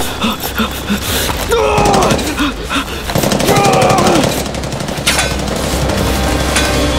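Rapid automatic gunfire, a machine gun firing long bursts, with a voice yelling over it twice.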